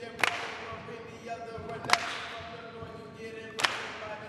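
A cappella vocal performance through a handheld microphone: a held, pitched voice broken by a sharp, echoing snap about every 1.7 seconds, three in all.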